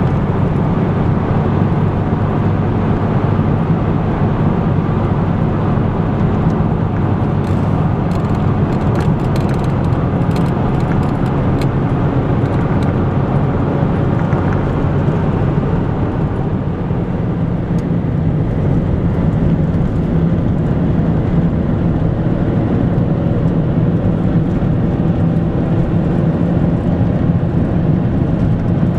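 Car driving along a road, with steady engine and road noise heard from inside the cabin.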